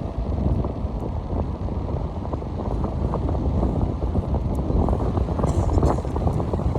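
Wind buffeting the microphone over the steady low rumble of a car being driven.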